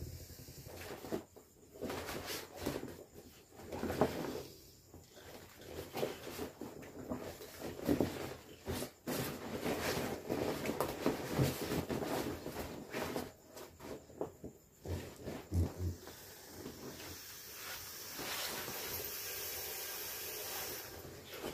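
Inflatable chair being deflated: its plastic skin is squeezed and folded by hand, rubbing and crinkling irregularly. In the last few seconds a steady hiss of air escapes as it is pressed flat under body weight.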